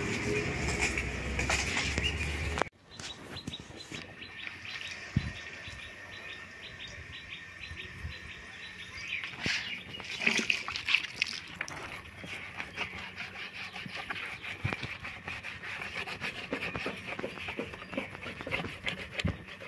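Birds chirping, with scattered short clicks and rubbing from a cloth wiping down a wet motorcycle. The background drops suddenly about three seconds in.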